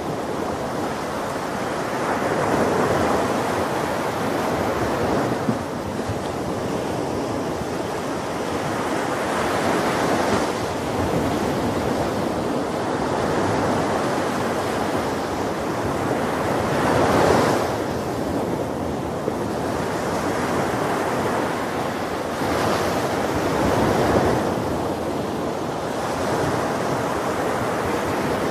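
Ocean surf on a beach: waves break about every seven seconds, four times, with a steady wash of water between them.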